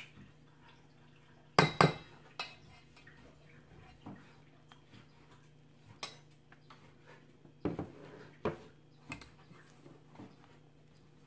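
Silicone spatula stirring flour and eggs into a dough in a stainless steel mixing bowl: scattered knocks and clinks as it strikes the bowl, the loudest pair about a second and a half in, with a soft scraping of the mixture between.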